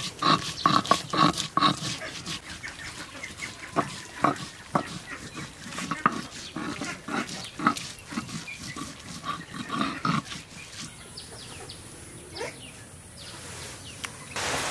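A series of short animal cries, packed close together for the first couple of seconds, then coming singly until about ten seconds in.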